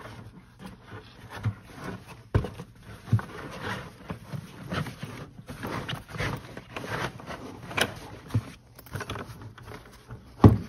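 Canvas bucket tool organizer being worked down over a 5-gallon plastic bucket by hand: fabric rustling and rubbing against the plastic, with irregular light knocks and a sharper knock near the end.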